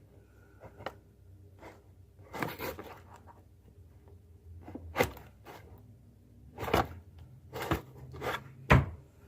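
Fingers prying and scraping at a cardboard box, with a series of short scratching and tearing sounds, the loudest few near the end.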